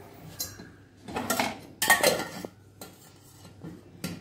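Kitchenware clinking and scraping against a ceramic mug while a drink is strained into it: a handful of short clatters, the loudest about two seconds in.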